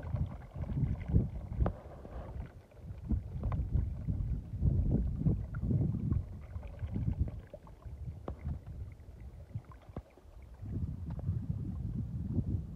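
Gusting wind rumbling on the microphone, with water sloshing and splashing as a plastic bottle is dipped into a pool to fill it.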